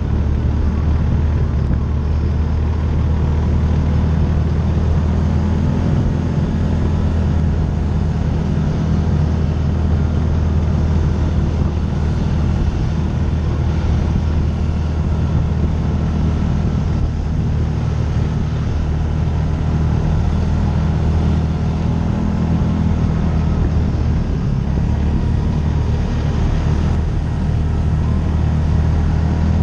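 Side-by-side UTV engine running steadily under way, a low drone that rises and falls a little in pitch, with road and wind noise.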